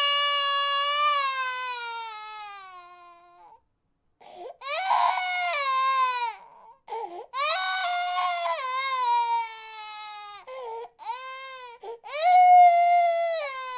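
Baby crying in a run of long wails, each one falling in pitch as it tails off, with short breaks for breath between them. A few shorter, choppier cries come about eleven seconds in, before another loud wail starts near the end.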